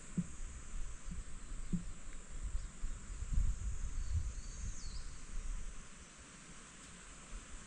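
Outdoor summer ambience: insects keep up a steady high-pitched drone, with uneven low rumbles of wind on the microphone that swell in the middle. A short falling chirp, like a bird call, comes about five seconds in.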